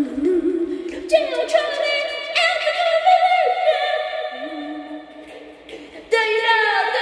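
Unaccompanied singing in long held notes, two or three pitches sounding together; new notes come in about a second in, again at about two and a half seconds, and near the end.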